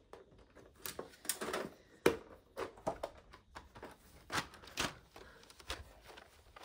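A metal pencil tin being prised open and handled: a string of irregular clicks, taps and scrapes, the sharpest about two seconds in.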